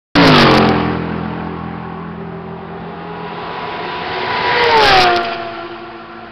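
Endurance race cars passing at speed. One is loudest right at the start, its engine pitch falling as it moves away. A second car approaches, growing louder, and passes about five seconds in with a sharp drop in pitch.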